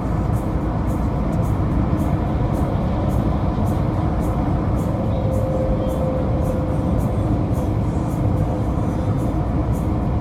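Car travelling at highway speed: a steady low tyre-and-road rumble.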